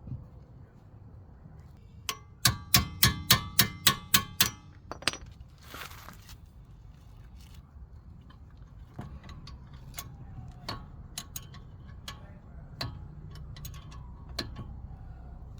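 Metal hand tools working on a car's rear brake caliper bolts: a quick run of about eight sharp, ringing metallic clicks about two seconds in, then a brief rustle and scattered lighter clicks and clinks.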